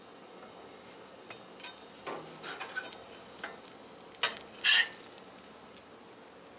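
Metal spatula scraping and clicking against the steel top of a Blackstone griddle as a pressed sandwich is cut and slid up off it, a scattered run of short scrapes with the sharpest near the end. A faint sizzle runs underneath.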